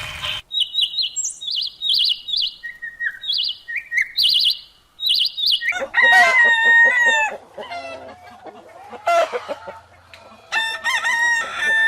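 Short, high chirps repeating for about five seconds, then a rooster crowing about six seconds in, with clucking after it and a second crow near the end.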